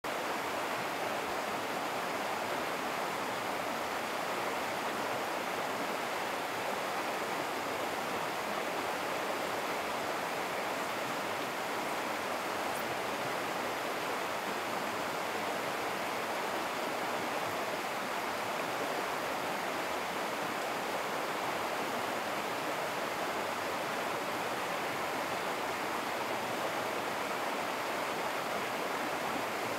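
Steady rushing of river water, an even unbroken hiss that holds at one level throughout.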